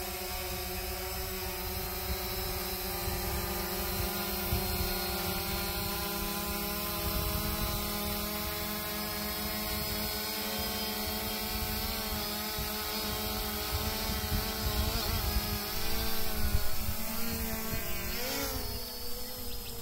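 Quadcopter drone's propellers humming as it flies, a steady multi-tone whine over low wind rumble. The pitch wavers in the second half and rises briefly near the end.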